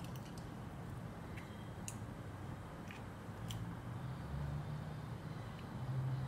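A low, steady hum in the room with about four faint, sharp clicks of eggshell being handled as an egg is separated by hand over a stainless steel bowl.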